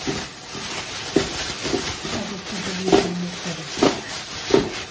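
Plastic oven bag rustling and crinkling as it is shaken to toss the potato chunks and onion inside, with a soft thud every half second to a second as the contents shift.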